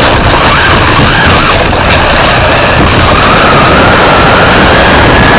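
Radio-controlled rally car heard from its onboard camera while driving: a loud, distorted rush of tyre and drivetrain noise with a thin motor whine that wavers, then climbs steadily in pitch over the second half as the car speeds up.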